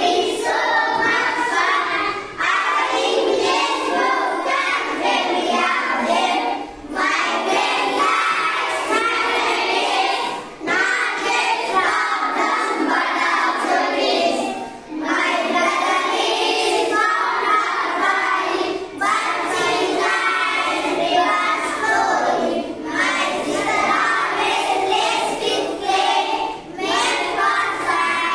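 A class of schoolchildren singing an English rhyme together in unison, in phrases with a short break about every four seconds.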